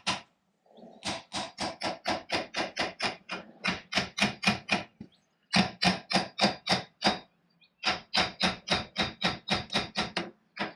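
A hammer strikes the metal lathe chuck rapidly and repeatedly, about five sharp ringing blows a second, in runs of a couple of seconds with brief pauses between them, to knock a part loose.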